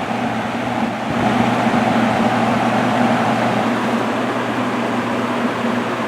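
Vintage Zayre 20-inch seven-bladed box fan with a Hunter motor running steadily on high speed: a broad rush of air over a constant low motor hum.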